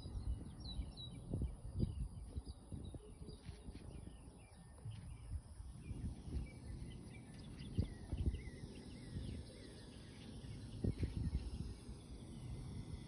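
Wind buffeting the microphone in uneven gusts, with birds chirping at the start. A faint, thin high whine from a distant electric RC plane's motor grows slightly toward the end.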